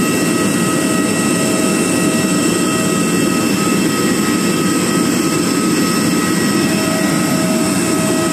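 Airbus A321neo jet engines running steadily at low power, a constant rumble with a steady multi-pitched whine over it.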